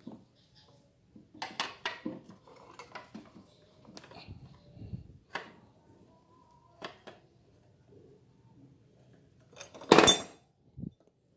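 Metal clinks and taps of tools and engine parts being handled on a Honda UMR435T four-stroke brush cutter, with a louder metal clatter about ten seconds in as the engine's top cover is lifted off.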